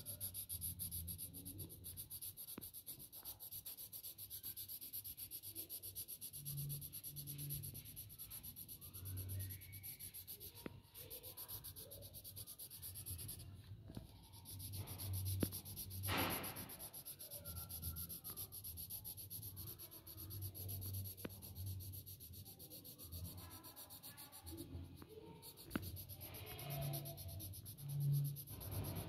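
Graphite pencil shading on paper: quick, repeated back-and-forth strokes scratching and rubbing across the sheet.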